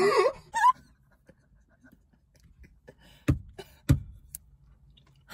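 A laugh trails off at the start; then, after a quiet pause, noodle-eating mouth sounds: faint clicks and two sharp slurping smacks about three and four seconds in.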